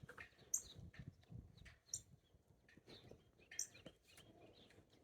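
Hummingbird giving short, very high chip notes, scattered and faint, with the sharpest ones about half a second in, about two seconds in and about three and a half seconds in.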